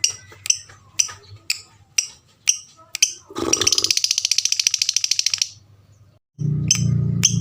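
Lovebird calling: sharp, high chirps about twice a second, then a rapid, chattering trill lasting about two seconds. After a short pause the chirps start again near the end over a low, steady drone.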